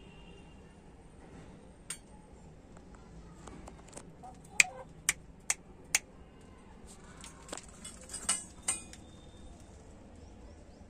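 Sharp metallic clinks and rattles from a wire-mesh chicken cage: an isolated clink, then a quick run of four about halfway through, then a rattling cluster near the end.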